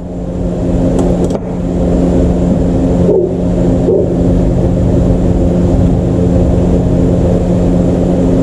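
A steady motor hum at an unchanging pitch, with a noisy rush beneath it.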